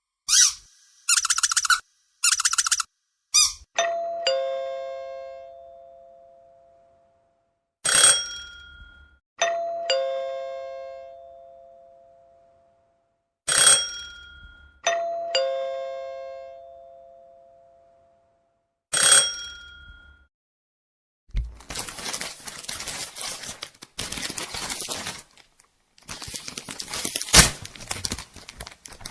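Two-note doorbell chime, a higher note then a lower one, ringing three times about five and a half seconds apart. Each ring comes shortly after a short sharp sound. Rustling and crackling follow near the end.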